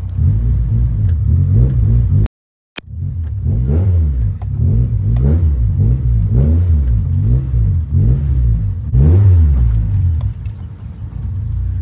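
Honda Civic's engine being revved up and down over and over, about once a second, while the car is manoeuvred. Its pitch rises and falls with each blip of the throttle.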